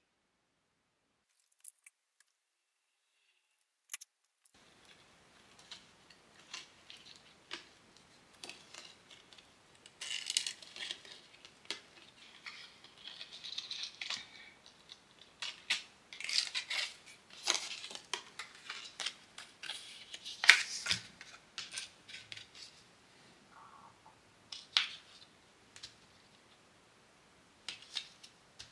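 Small hand-handling sounds of packaging handmade charms and pins: paper backing cards rustling and crisp clicks and clinks of small hardware, starting about four seconds in after silence and busiest in the middle.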